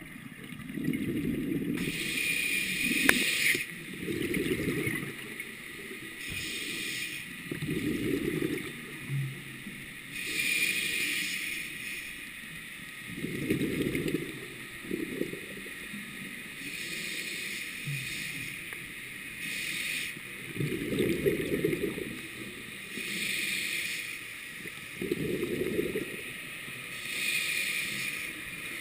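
Scuba diver breathing through a regulator underwater: a hissing inhale, then a bubbling exhale, repeated over several slow breaths every few seconds.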